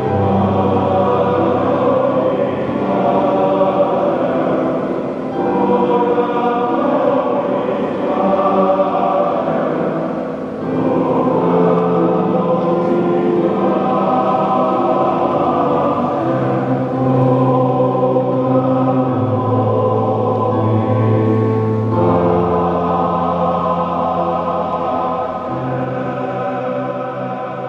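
Men's choir singing with piano accompaniment, long sustained notes, dying away at the very end.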